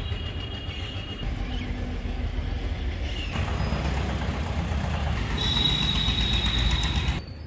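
Low, steady rumble of a vehicle engine running, with the background changing abruptly about three seconds in.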